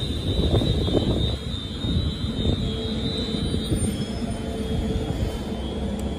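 London Northwestern Railway electric train standing at the platform, its onboard equipment running with a steady rumble and a high steady tone that stops about four seconds in.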